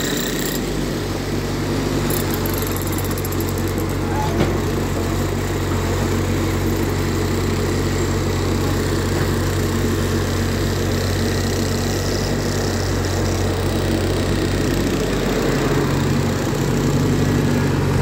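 Tata Hitachi EX70 mini excavator's diesel engine running steadily, its note shifting about three seconds before the end.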